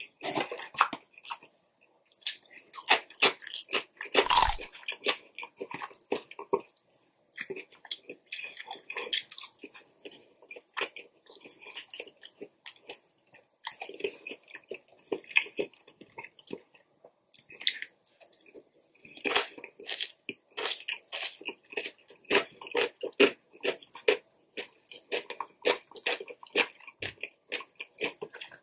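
Close-miked chewing and biting of Chinese fast food (broccoli, battered chicken and shrimp, noodles): many short crackling clicks and wet mouth sounds in irregular bursts, with brief pauses between mouthfuls.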